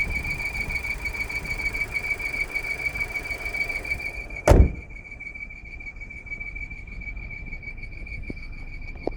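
2019 Volkswagen Jetta making a steady, high-pitched squeak over a low rumble. This is the fault that a dealership repair has not cured. A single loud thump comes about halfway through, after which the rumble is quieter while the squeak goes on.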